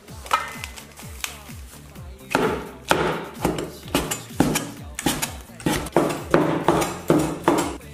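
A steel cleaver chopping a braised pork hock into pieces on a wooden cutting board: a dozen or so sharp, even chops, about two a second, starting a couple of seconds in.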